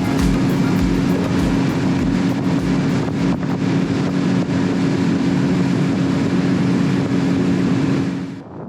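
Boat's outboard motor running at a steady hum, which cuts off abruptly near the end.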